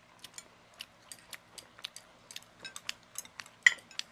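Chopsticks and utensils clicking and tapping against ceramic plates and rice bowls while people eat, in irregular sharp clicks several times a second, with one louder clack about three and a half seconds in.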